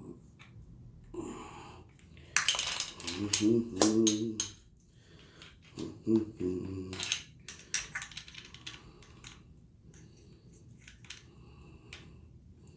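Small metal clicks and clinks of a rifle bolt and a 6.5 Grendel cartridge being handled as the round is worked onto the bolt's extractor by hand. A short low muttering voice comes in twice near the middle.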